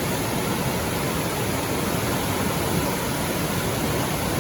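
Floodwater gushing through a swollen river and over the tops of rocks: a steady rush of water.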